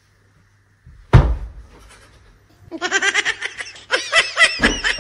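A single heavy thump about a second in, followed from a little before the halfway point by a person laughing hard in a fast run of high-pitched ha-ha bursts.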